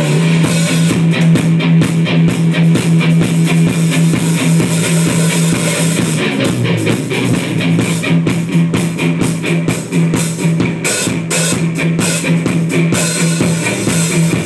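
Rock band playing live: electric guitars and drum kit in an instrumental passage, over a low note held steady throughout.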